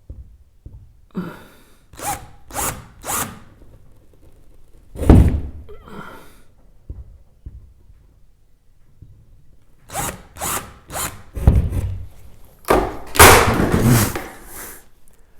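Power drill with a 5/32-inch bit boring mounting holes into the garage wall, run in short bursts. Several brief pulses come early, then a louder one, another cluster later, and one longer run near the end.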